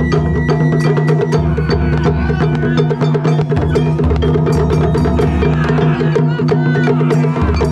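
Japanese taiko drum ensemble playing a fast, dense rhythm of strikes over steady sustained pitched tones.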